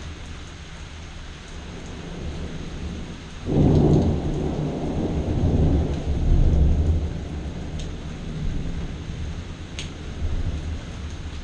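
Rain falls steadily. About three and a half seconds in, a thunderclap breaks suddenly and rolls on as a deep rumble for three or four seconds, then fades back under the rain. A couple of faint sharp ticks come near the end.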